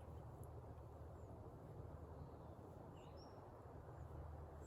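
Near silence: a steady low background hum with a few short, faint bird chirps.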